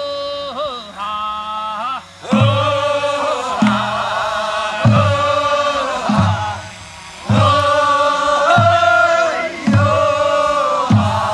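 Korean folk song from Mungyeong: one voice sings, then from about two seconds in louder, fuller singing takes over, with a low drum-like beat about every second and a quarter.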